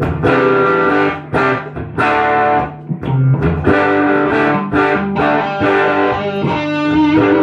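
Two Gibson Les Paul electric guitars jamming together through amplifiers in the key of G, with strummed chords and lead notes.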